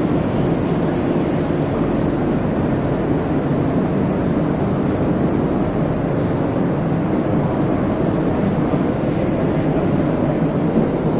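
Mumbai suburban local train running, a loud, steady rumble of wheels on the rails.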